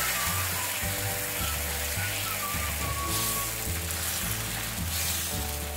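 Thin flour batter sizzling in hot oil on a tawa (flat griddle) as a ladle spreads it out, a steady hiss.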